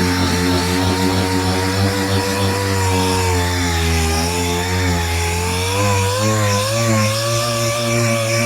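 Power sander running continuously on a car body panel, its motor pitch wavering up and down as it is worked under varying pressure.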